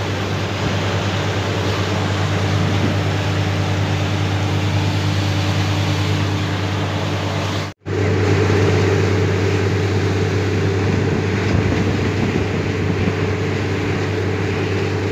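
Borewell drilling rig running: its engine and air compressor drone steadily while compressed air blows water up out of the borehole in a hissing spray. The sound cuts out for an instant about eight seconds in and comes back a little louder.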